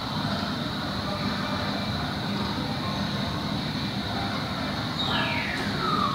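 Steady background din of a large indoor play centre, a constant low hum under a faint high whine. About five seconds in, a single high tone slides down in pitch for about a second.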